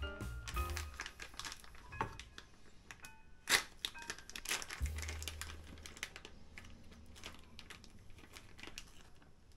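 Plastic mozzarella pouch crinkling as it is squeezed and handled, with irregular crackles and tearing as its corner is ripped open.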